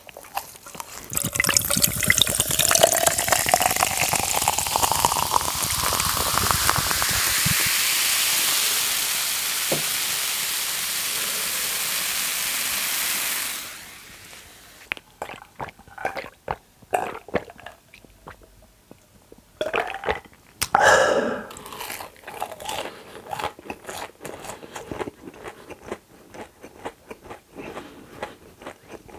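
Coffee poured into a glass jar mug full of ice, a steady rushing pour whose pitch rises as the jar fills, stopping suddenly about 13 seconds in. Quieter scattered clicks follow, with a brief louder sound about 21 seconds in.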